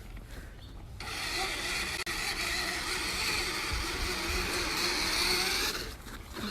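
Small electric motor of a child's battery-powered ride-on toy vehicle running with a steady whine, starting about a second in and cutting out near the end.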